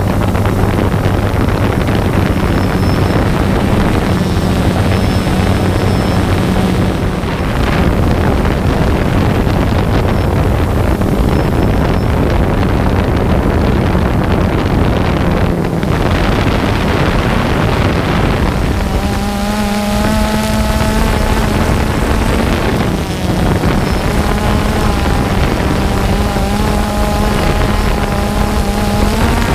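DJI Phantom 2 quadcopter in flight: its four electric motors and propellers hum steadily with heavy wind noise. The hum grows stronger and wavers slightly in pitch about two-thirds of the way in.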